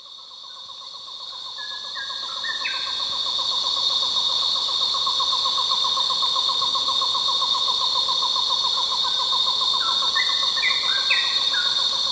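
Tropical rainforest ambience fading in: a steady high insect drone with a rapid pulsing trill beneath it. Twice, a bird calls in a run of short clear notes mostly stepping up in pitch: about two seconds in and again near the end.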